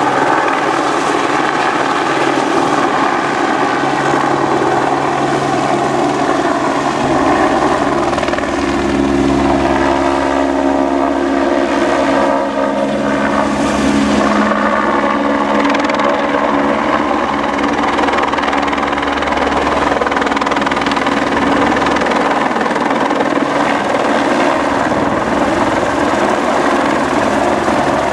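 Eurocopter AS350 single-engine helicopter flying low with an underslung load on a long line: loud, steady turbine and rotor noise. A deeper rotor rumble comes in about a quarter of the way through and fades later, and the pitch shifts briefly around the middle.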